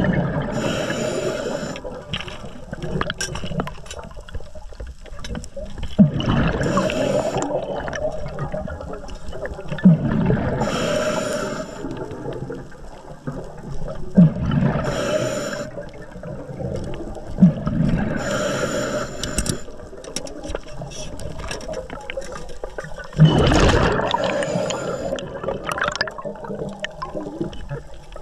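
Underwater water noise with a diver's breathing cycle: roughly every four seconds a short low sound is followed by about a second of hissing and bubbling.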